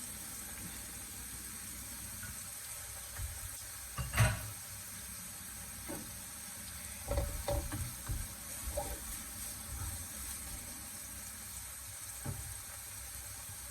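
Sliced chillies, garlic and onion sizzling in oil in a frying pan while being stirred, with a few knocks, the loudest about four seconds in.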